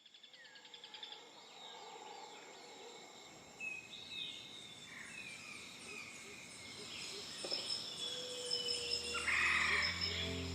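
Birds chirping and calling over a steady high-pitched insect drone. Steady low notes of music come in near the end.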